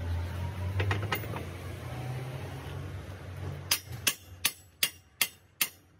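Steel hand hammer striking the steel track gear at the idler of a Komatsu 130 excavator, a steady run of about seven sharp ringing blows a little under half a second apart, starting past halfway. Before the blows, a low steady hum with a few scattered clinks.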